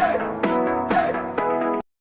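Electronic background music with a beat about every half second, cutting off suddenly near the end.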